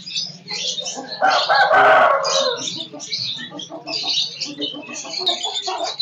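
A rooster crows once, loudly, for about a second and a half, starting about a second in. Small caged parrots chirp continuously in the background.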